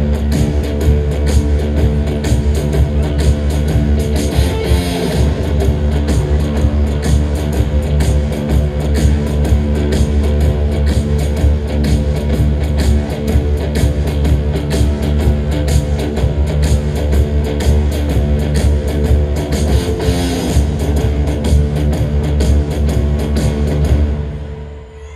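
Live rock band playing loud: a guitar and bass riff over a steady drum beat, heard through the concert sound system. The music stops abruptly near the end.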